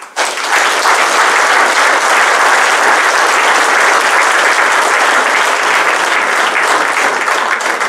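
A large seated audience applauding steadily after a speech ends, the clapping starting abruptly and holding at an even level.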